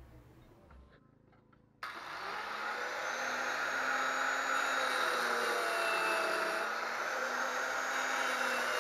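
Handheld electric marble-cutter saw running and cutting into a wooden board, starting abruptly about two seconds in: a steady motor whine with the rasp of the disc in the wood.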